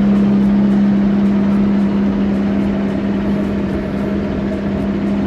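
A boat's engine running loud and steady at a constant pitch.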